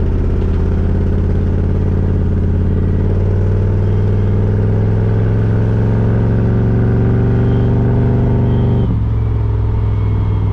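A 1982 Chevrolet Camaro's engine and header exhaust heard from the driver's seat while the car is under way. The engine pulls steadily with its pitch slowly rising for several seconds, then falls suddenly near the end.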